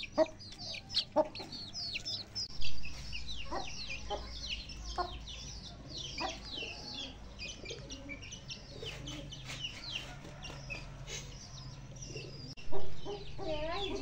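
Young chickens peeping constantly, many short high calls that fall in pitch, over a low steady hum that comes in about two seconds in, with two louder sounds, one about three seconds in and one near the end.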